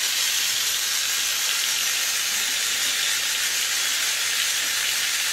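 Steady, even hiss at a constant level, with no distinct motor whine or clicks.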